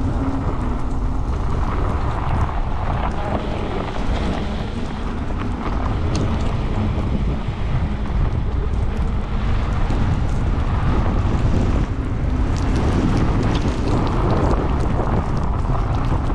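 Steady wind noise rumbling on the microphone while riding a bicycle through a snowstorm.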